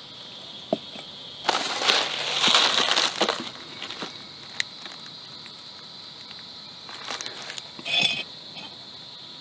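Crinkling and rustling of a Mountain House freeze-dried meal pouch being handled, loudest for about two seconds near the start, with a few light clicks and a short crinkle near the end. A steady high-pitched drone runs behind it.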